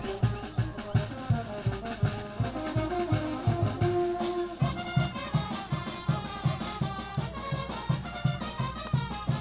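Brass band music with a steady beat; the melody changes about halfway through.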